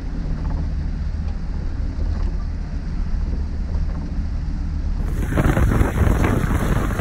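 Small hatchback wading through deep floodwater: a steady low rumble of engine and water heard from inside the car, then about five seconds in the sound switches to close beside the car, where loud rushing and splashing of the bow wave and wheel spray takes over.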